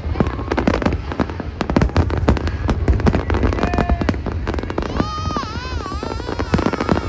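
Aerial fireworks going off in rapid, dense succession, a continuous barrage of bangs and crackling. A high, wavering pitched tone joins about five seconds in.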